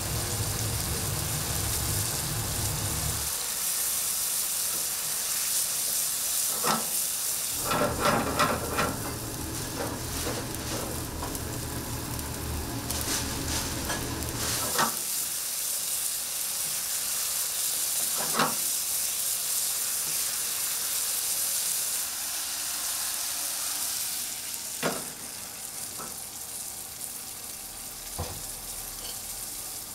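Risotto sizzling and bubbling in a nonstick frying pan while it is stirred with a wooden spatula. The spatula scrapes and knocks against the pan now and then, over a steady hiss of frying. A low hum sounds in the first few seconds and again from about 8 to 15 seconds in.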